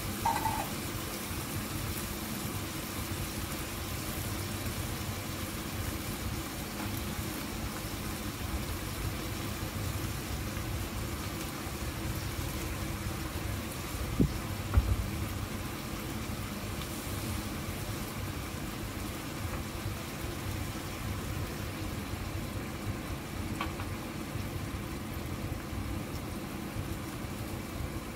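Pork belly simmering in sauce in a frying pan on a gas burner: a steady bubbling, sizzling hiss with a low rumble underneath. Two short knocks, the loudest sounds, come about halfway through.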